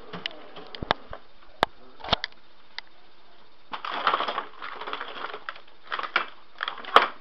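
Kitchen handling noises: a few sharp clicks, then short scraping rustles in bursts, and a loud knock near the end.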